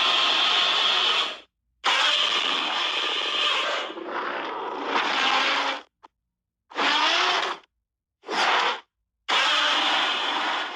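Godzilla roar sound effect, 2021 version: a harsh, screeching roar played over and over. There are about five roars, the first two long and the later ones short. Each one cuts off abruptly into dead silence.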